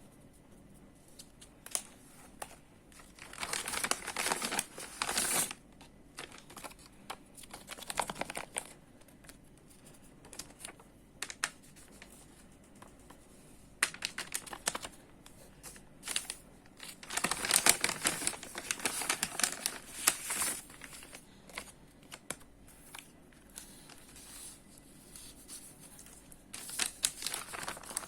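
Plastic packaging crinkling and rustling in several bursts as it is handled and opened, with scattered light taps and clicks in between.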